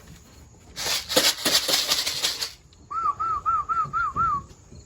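About two seconds of loud rattling, then a person's warbling whistle of six quick rising-and-falling notes, calling homing pigeons in to the loft.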